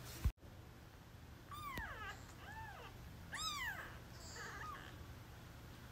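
Newborn kittens mewing: thin high-pitched cries that rise and fall, about three clear mews with a fainter one after, the third the loudest. A short knock comes just before the first mew.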